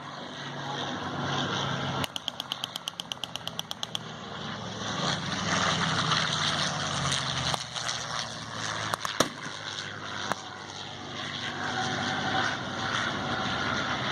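Vehicle engines running under a noisy outdoor wash, with a two-second burst of rapid machine-gun fire, about eight shots a second, some two seconds in, and a few single shots about nine seconds in.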